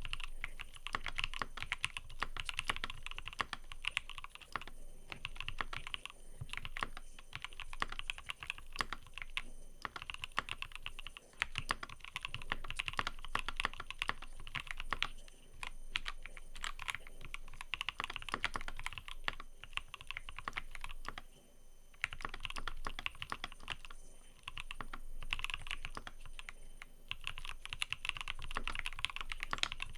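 Fast, continuous typing on a mechanical keyboard: a dense stream of keystroke clicks, with two brief pauses, one about halfway through and one about two-thirds of the way in.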